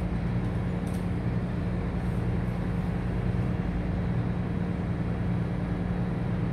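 Steady low drone of a cargo ship's running engine and machinery, an even hum under a constant rushing noise.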